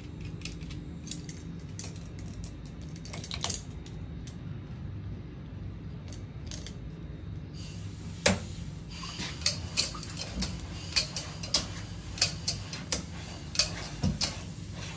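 Steel chain of chain-clamp locking pliers jangling and clinking against a steel running tool as it is wrapped around the tool and clamped on. From about eight seconds in come sharp metal clinks roughly every half second as the clamped tool is turned to screw the housing down, over a steady low hum.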